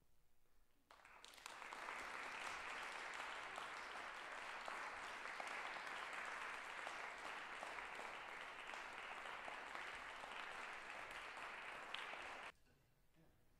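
Audience applauding. The applause swells in about a second in, holds steady, and cuts off suddenly near the end.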